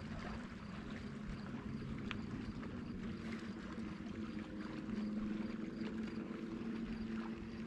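Steady hum of a small boat's electric trolling motor holding the boat in position, with a light wash of water and a few faint ticks.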